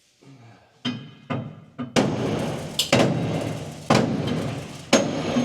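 Hammer blows on a metal part of a combine's clean grain elevator, driving it along its shaft up against the bearing. A few light taps come first, then harder blows about once a second, each one ringing on afterwards.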